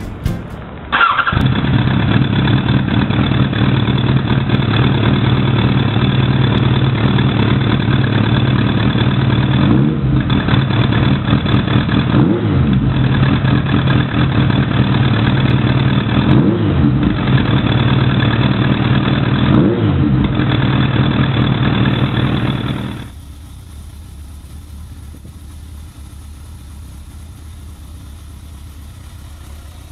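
Kawasaki ZRX1200 inline-four, breathing through FCR carburettors with pod air filters, running loud and steady, with four brief throttle blips. Near the end it switches to a much quieter, steady idle.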